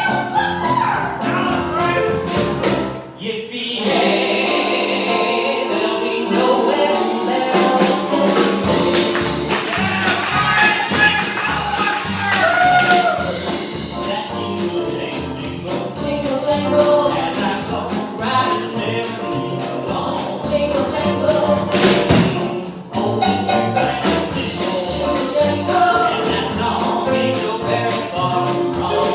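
Stage show music with several voices singing together over a band with a steady beat. The music drops out briefly twice, about three seconds in and again about two-thirds of the way through.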